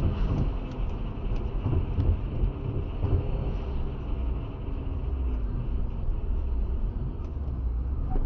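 Car at highway speed heard from inside the cabin through a dashcam microphone: a steady low rumble of tyre and engine noise.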